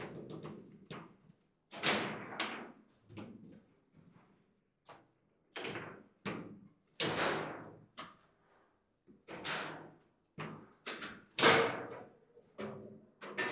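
Table football (foosball) play: irregular sharp knocks and clacks as the plastic figures strike the ball and the rods bang against the table. The loudest knock comes about eleven and a half seconds in.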